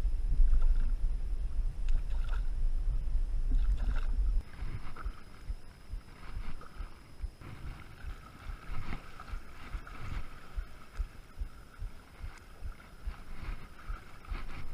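Wind buffeting the microphone for about the first four seconds, cutting off suddenly, over water lapping at the shore. After that, lapping water with a run of soft low knocks.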